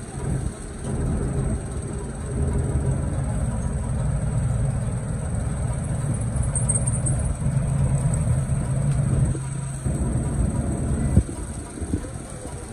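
Street noise with a steady low motor-like hum, which breaks off and changes about ten seconds in.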